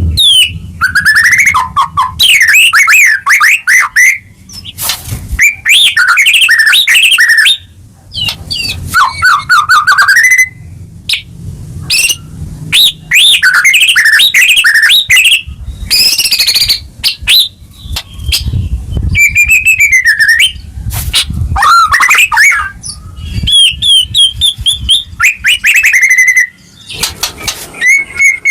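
White-rumped shama (murai batu) in full song: loud, varied phrases of clear whistles and rapid trills, each a second or two long, with short pauses between.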